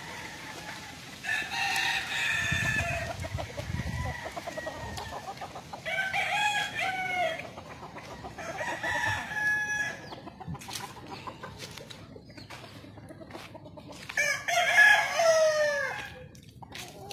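Roosters crowing, about four separate crows, the last and loudest near the end.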